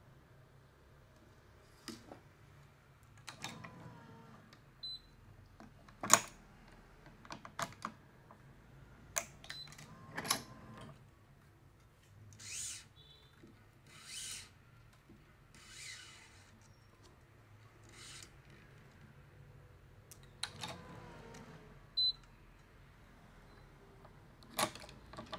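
A badminton racket being strung by hand, the cross string woven through the mains: scattered clicks and light knocks, and several short swishes about half a second long as string is drawn through the weave.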